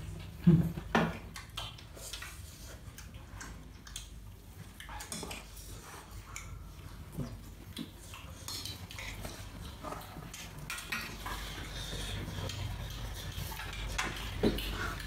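Tableware clatter during a meal: chopsticks clicking against rice bowls, including a metal bowl, and a serving spoon scraping rice from a rice-cooker pot, in scattered light clicks. Two louder knocks come about half a second and a second in, and another near the end.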